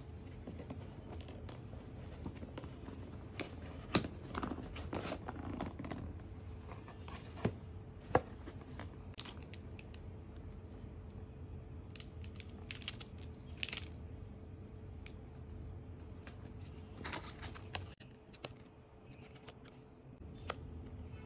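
A cardboard box being unpacked by hand: flaps and lid opening, a paper manual and a card rustling and crinkling, with scattered taps and scrapes on the cardboard and two sharper clicks about 4 and 8 seconds in. A faint steady hum runs underneath.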